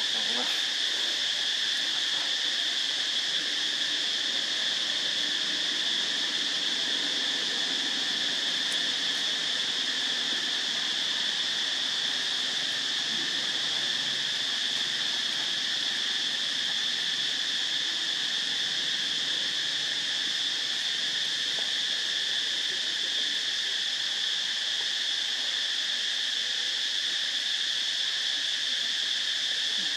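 Steady, high-pitched insect chorus droning without a break in the forest around the monkeys.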